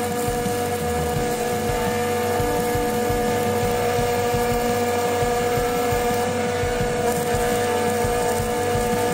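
Arc welding on the steel cross member of a trailer hitch: a continuous crackle from the arc over a steady engine drone.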